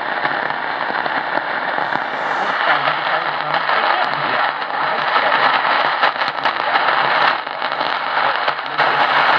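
AM radio static from a Tecsun PL-680 tuned to 750 kHz on the medium wave band: a steady loud hiss full of crackling static crashes from distant thunderstorms, with a weak station barely coming through underneath.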